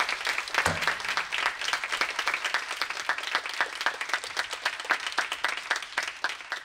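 Audience applauding, dense clapping that starts to thin out near the end.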